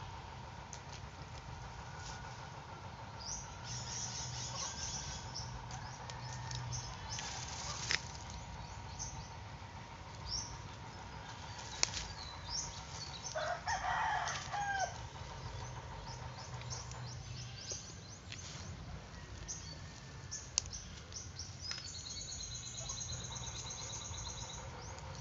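Outdoor forest ambience: small birds chirping high over a steady insect hum, with a louder bird call, fowl-like, about halfway through and a few sharp clicks.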